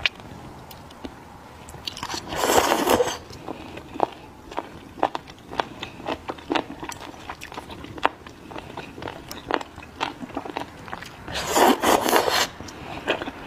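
Mouth sounds of a person eating raw octopus tentacles: two long slurps, about two seconds in and again near the end, with frequent short chewing clicks in between.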